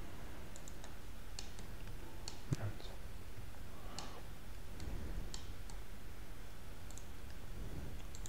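Irregular, scattered clicks of a computer mouse and keyboard, a dozen or so sharp taps, over a steady low room hum.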